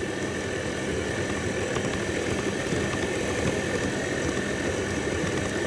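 Electric stand mixer running steadily, its flat beater working cinnamon biscuit dough in a stainless steel bowl until the dough comes together and stops sticking. The motor runs at an even level with a faint steady whine.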